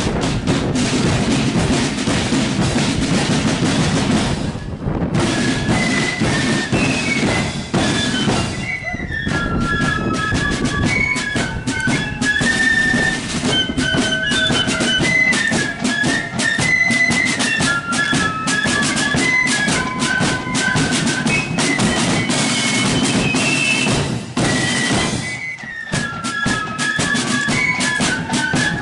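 Marching flute band playing: drums beating, with the flutes coming in on a melody about five seconds in.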